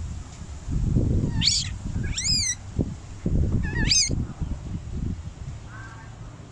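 Baby monkey crying with three short, high-pitched, wavering squeals in the first four seconds and a faint call near the end, over bouts of low rumbling noise.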